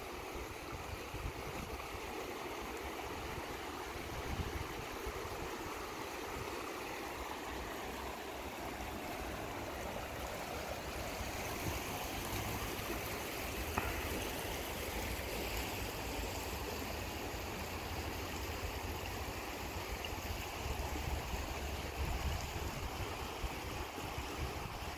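Whitewater rushing steadily through a man-made concrete slalom channel, water churning over standing waves and past concrete blocks.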